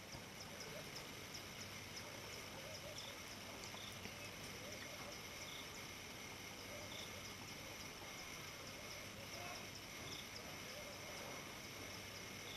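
Faint bush ambience: a steady high insect drone with a regular chirp about three times a second, short high bird notes every second or so, and a few faint, distant lower calls.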